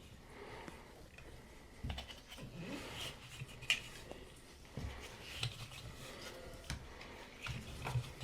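Scattered light clicks, taps and rubbing from hand work on tub-spout plumbing, with a few soft knocks, while the pipe threads are re-wrapped with Teflon tape.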